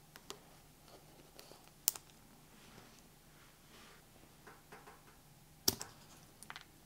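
Small scattered clicks and ticks of steel tweezers against a tiny rechargeable watch battery cell and its metal terminal tab, as the adhesive-backed terminal is pried off the old cell. Two of the clicks are sharper, one about two seconds in and one near the end.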